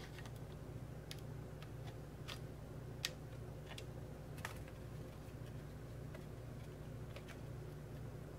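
Faint, scattered clicks and light taps as a circuit board and hand tools are handled on a workbench, over a steady low hum.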